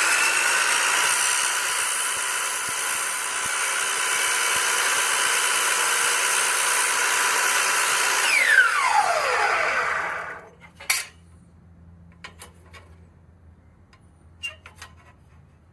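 Electric power saw spinning up and running at speed for about ten seconds, then coasting down with a falling whine, as the overlong LED track or lens is trimmed shorter. A few light knocks follow.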